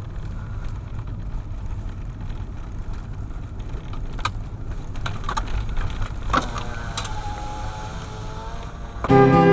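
A steady low rumble like a running vehicle, with a few sharp clicks in the middle. Music with strings comes in near the end.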